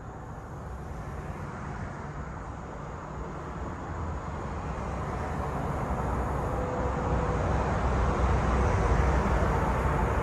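A vehicle's low rumble, growing steadily louder.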